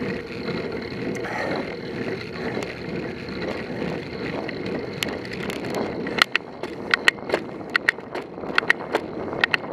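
Bicycle riding along an asphalt road: steady rolling and wind noise on the mounted camera, with a run of sharp, irregular clicks and rattles from about halfway through.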